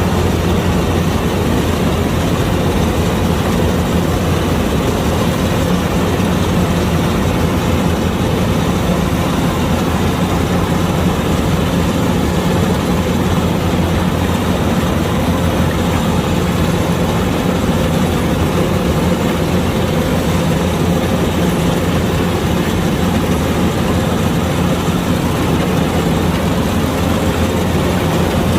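Kubota DC-105X combine harvester's diesel engine running steadily, a loud, even machine drone with a low hum and no change in pace.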